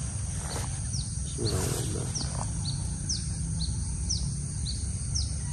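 Bird chirps: short, descending notes repeated about twice a second, over a steady high hiss and a low rumble.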